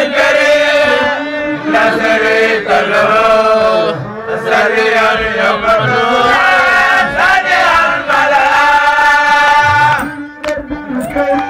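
A man chanting into a microphone, amplified, in long held, ornamented sung lines that bend in pitch, pausing briefly about four seconds in and again near the end.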